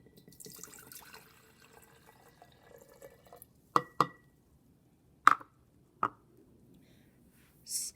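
A cup of water poured into a jar, a faint splashing fill for about three and a half seconds. It is followed by four sharp knocks or clinks, one of them ringing briefly, as the cup and jar are handled.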